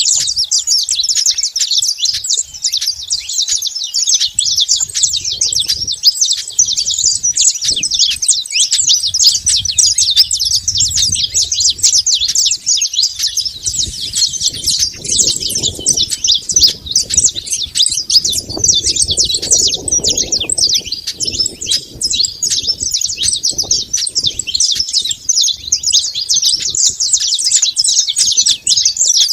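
Saffron finches chirping in a dense, unbroken chorus of rapid high notes. A lower, muffled sound rises and falls underneath through the middle.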